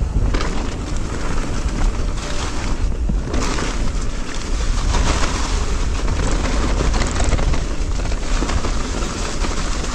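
Wind buffeting the microphone over the rolling noise of an e-mountain bike's tyres on a leaf-covered dirt trail, with frequent short knocks and rattles from the bike over the bumps.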